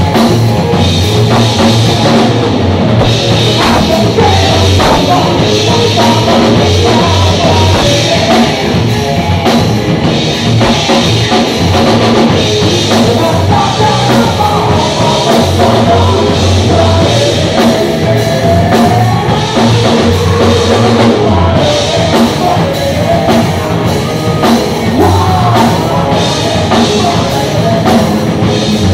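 A rock band playing live and loud: drum kit, bass and electric guitar, with a singer's voice over them.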